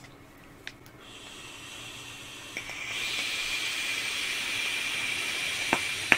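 Vapes being drawn on: air hissing through the e-cigarette atomizers, louder from about three seconds in, with a thin steady whistle over it. Two small clicks come near the end.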